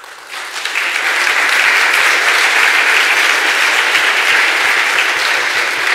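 Audience applauding, building up over the first second, holding steady, then easing off near the end.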